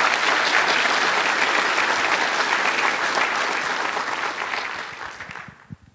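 Audience applause, dying away near the end.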